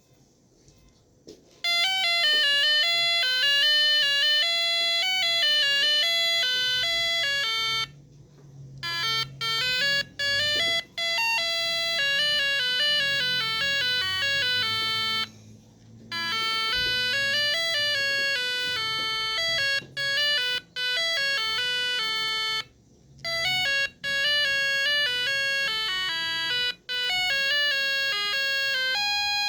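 1980s electronic sound-effects keychain playing beeping tunes: quick steps of buzzy electronic tones in several runs of a few seconds each, stopping and starting again after short pauses.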